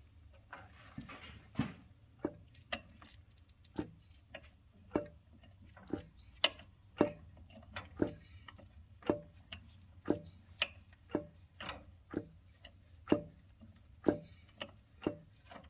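Sharp clicks about twice a second as the crankshaft of a 6.0 LS V8 is rocked back and forth by hand, the number 4 connecting rod knocking on its crank journal: the slack of a spun rod bearing.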